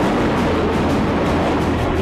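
Loud, steady roar of military jet aircraft passing overhead, with a low drone setting in shortly after the start and background music beneath.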